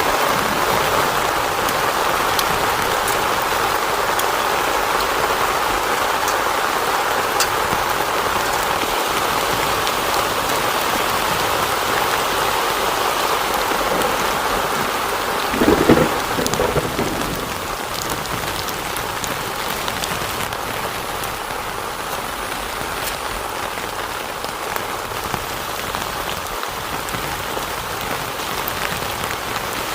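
Heavy rain falling steadily on a tent, with a short rumble of thunder about halfway through; the rain eases slightly after it.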